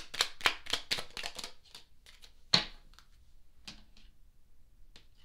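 A deck of oracle cards being shuffled in a quick run of sharp card clicks, about five a second, which stops after a second and a half; then a card is snapped down on the table with one loud slap, followed by a couple of soft taps as the cards are laid out.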